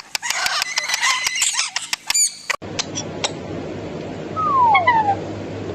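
Pet bird calling: a quick run of chirps and clicks, then, after an abrupt break about halfway through, a few clicks and two short whistles falling in pitch near the end.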